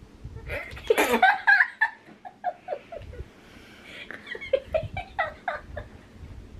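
Teenage girls laughing: a sudden loud outburst about a second in, then a run of short laughs that fall in pitch.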